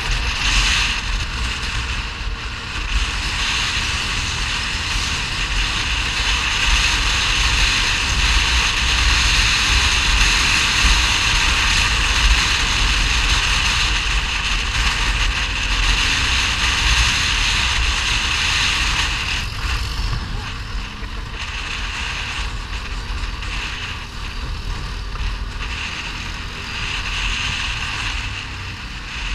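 ATV engine running while riding along a gravel track, with wind buffeting the camera's microphone and tyre noise from the loose gravel. The level drops somewhat about two-thirds of the way through.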